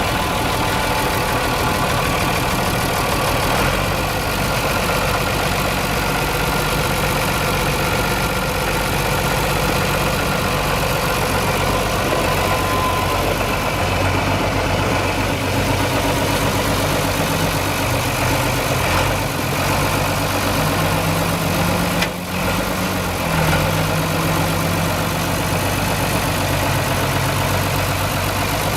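Ford 9600 farm tractor's six-cylinder diesel engine idling steadily, with a brief drop in sound about three quarters of the way through.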